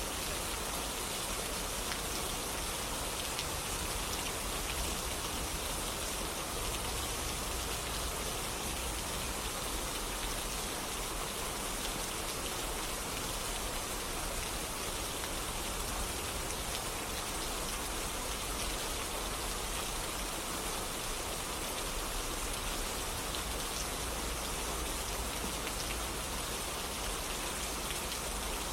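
Steady rainfall, an even hiss of rain with scattered drops, unchanging throughout.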